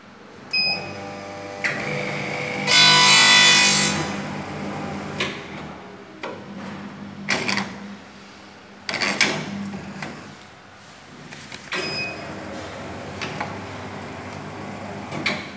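Electric hot-melt glue perfect binding machine running a binding cycle: a short beep as it starts, a steady motor hum with several clunks as the clamped book is carried through, and a loud harsh burst about three seconds in. A second beep sounds near the end of the cycle.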